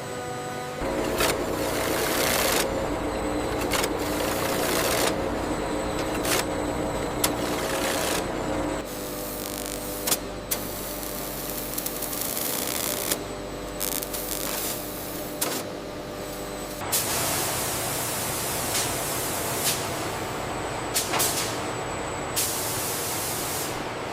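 Factory machinery sounds edited in quick succession: hissing air or spray, steady machine hum and sharp clicks. The mix changes abruptly every second or two.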